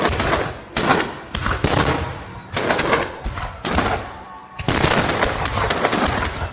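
A rapid volley of aerial firework shells bursting, with sharp reports roughly once a second, each trailing off into a spread of noise.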